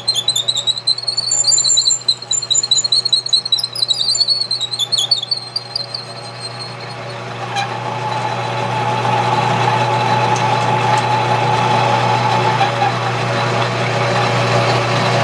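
Metal lathe running while a twist drill in the tailstock chuck bores into the end of a spinning wooden handle. A high, wavering squeal sounds for about the first five seconds, then the drilling settles into a steadier, louder cutting noise from about eight seconds in as the bit feeds deeper.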